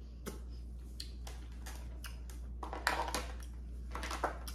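Hands working at seafood-boil shellfish shells: scattered small clicks and crackles, with a louder cluster about three seconds in and another near the end.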